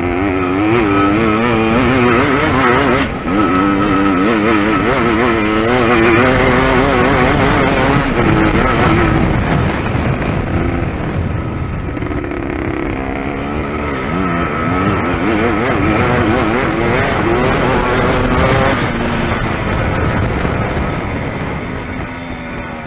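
Dirt bike engine at racing speed, heard from on board, its pitch rising and falling constantly with the throttle. It eases off over the last few seconds.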